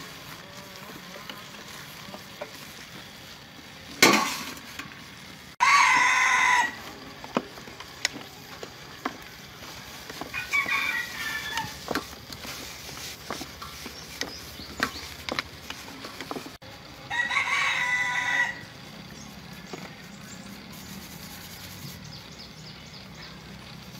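A rooster crowing twice, about six and seventeen seconds in, with a softer fowl call between. Underneath are small clicks and squelches of gloved hands mixing food in a steel bowl, and a single sharp knock about four seconds in.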